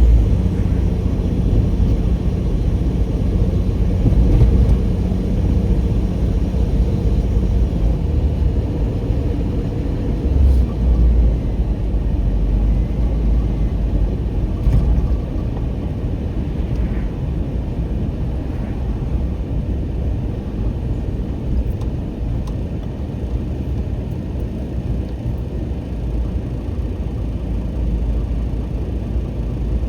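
Car driving along a road, heard from inside the cabin: a steady low rumble of engine and tyre noise that eases a little about halfway through.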